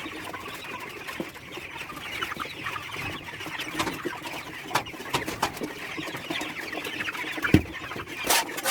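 A flock of chickens clucking continuously, with scattered knocks and scrapes from the cleaning; a louder thump about seven and a half seconds in.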